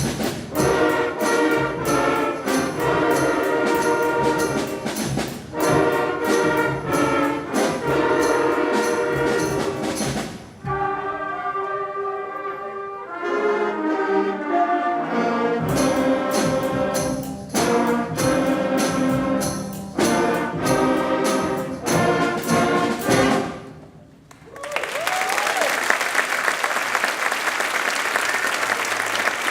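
Elementary school concert band of brass, woodwinds and percussion playing, with a steady drum beat and a softer passage in the middle. The piece ends on a final chord about 24 seconds in, and the audience applauds.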